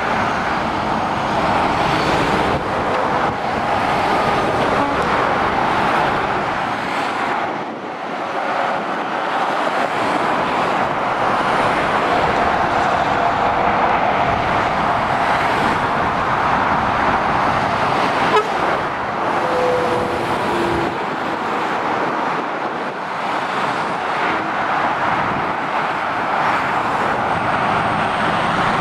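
Steady motorway traffic: heavy lorries and cars passing in a continuous stream, a rushing mix of tyre roar and diesel engine noise that swells as each vehicle passes and dips briefly about eight seconds in.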